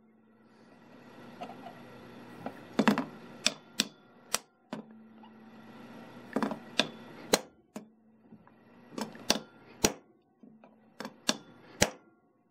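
Hammer striking a steel punch held against a wire rope ferrule, crimping the sleeve onto the rope. About a dozen sharp metallic taps come in quick groups of two to four, with short pauses between the groups.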